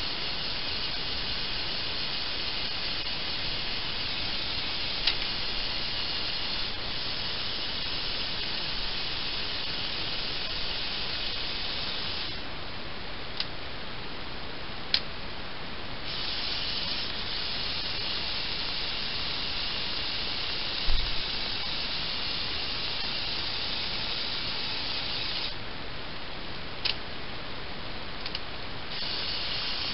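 LEGO Power Functions electric motor driving the Technic excavator's gear train and arm, a steady high whirring that stops twice for a few seconds and starts again. A few sharp clicks sound over it.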